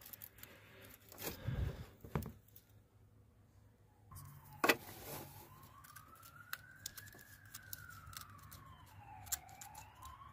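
A siren wailing, slowly rising and falling about once every five seconds, comes in about four seconds in. Under it are small metallic clicks and taps of hand tools, with one sharp click just after the siren starts.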